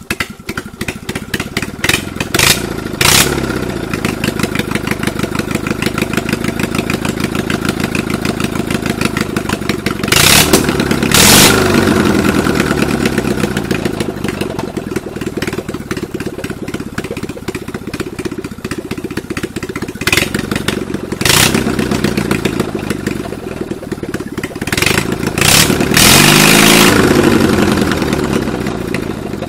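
Racing lawn mower's small engine running on open headers with no muffler, after the first start since its cylinder head was cleaned. It is revved up and allowed to drop back several times, about four times in all. The owner judges that it runs good.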